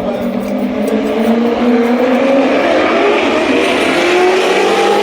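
Car engine accelerating hard on a drag-strip pass, its pitch climbing steadily, over a loud rushing noise.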